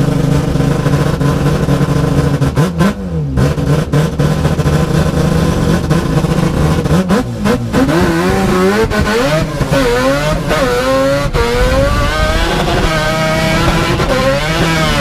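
Rotary engine idling steadily, blipped once about three seconds in. From about halfway it is revved again and again, its pitch climbing and falling in quick sweeps.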